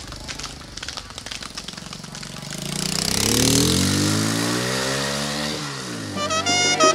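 Motorcycle engine revving up as it rides closer, its pitch rising, then levelling off and fading away after a few seconds.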